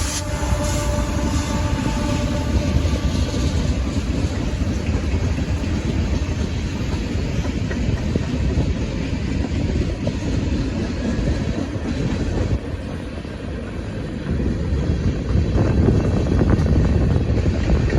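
Freight cars of a very long freight train rolling past, a steady rumble and clatter of steel wheels on the rails. The rumble eases a little about two-thirds of the way through, then swells again.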